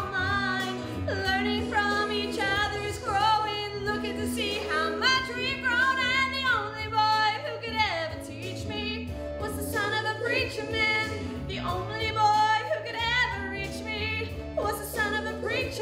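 A woman singing solo over a steady low instrumental backing, her voice sliding and leaping through quick runs of notes without clear words.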